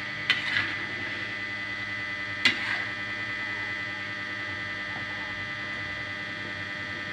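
A metal ladle clinks twice against the cooking pot while stirring coconut-milk chicken curry, the knocks about two seconds apart, over a steady hiss.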